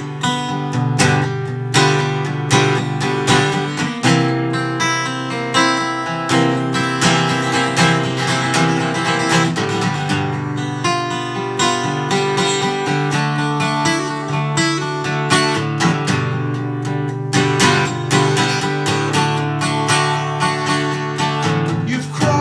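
Acoustic guitar played alone in an instrumental break of a folk-style song, strummed and picked chords in a steady rhythm.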